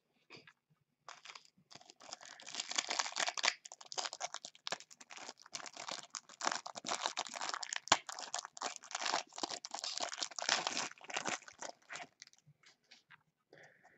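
A foil trading-card pack wrapper being torn open and crinkled in gloved hands: a dense crackle for about ten seconds that thins to a few scattered rustles near the end as the cards are slid out.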